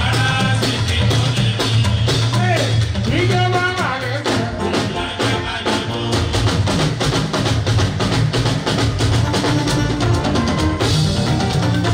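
Live fuji band music with dense, steady drumming and a singing voice, the voice strongest in the first few seconds.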